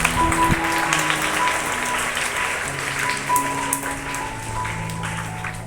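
An audience clapping over background music of long held notes that change pitch every second or so.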